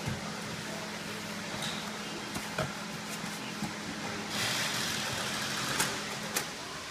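Cardboard shipping boxes being handled at a packing table: a few light knocks, then about two seconds of rustling and scraping cardboard with a couple of sharp clicks, over a steady low machine hum.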